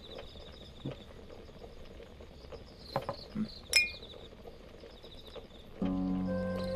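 Crickets chirping in a fast pulsing pattern, with a few soft knocks. A little under four seconds in comes one sharp, ringing clink of drinking glasses. Soft music comes in near the end.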